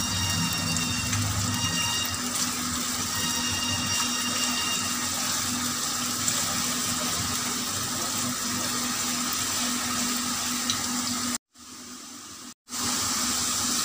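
Chopped onion frying in hot oil in a kadhai, a steady sizzle. It drops out for about a second near the end.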